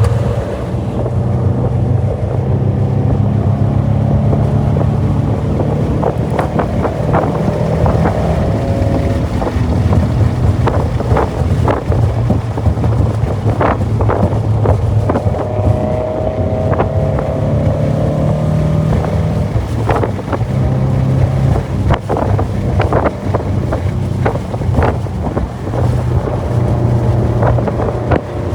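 Scion FR-S's flat-four engine running steadily while the car is driven, with wind buffeting the microphone and scattered knocks and clicks over the drone.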